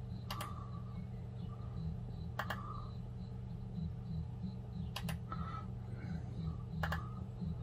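Computer mouse clicking: single sharp clicks about every two seconds, one of them a quick double click, over a steady low hum.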